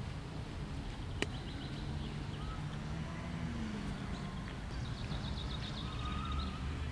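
Outdoor ambience: a steady low rumble with birds chirping in short high trills over the second half, and a single sharp click about a second in.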